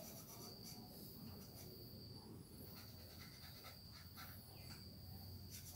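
Near silence: faint background ambience with a steady high thin tone and a few faint high chirps.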